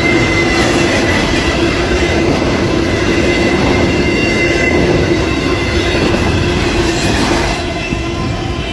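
Union Pacific train passing close by: a loud, steady rumble of wheels on rail with a sustained high ringing tone over it. Both ease off about seven and a half seconds in.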